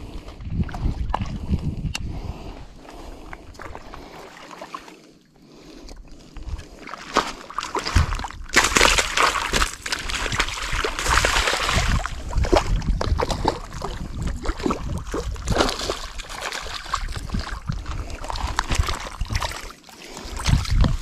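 Hooked northern pike splashing and thrashing at the surface as it is reeled in to the shoreline, with the heaviest splashing in a burst a little under halfway through.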